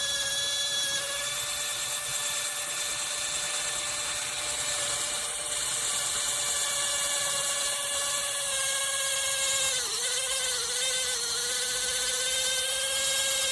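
ARROWMAX cordless mini drill running at speed with a steady high whine. About ten seconds in, its pitch sags briefly a few times and recovers.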